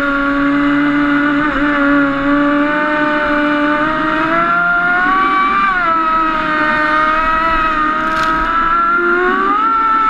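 Radio-controlled speedboat running at speed: a steady, high-pitched motor whine with water hiss underneath. The pitch swings up a little around the middle and again near the end.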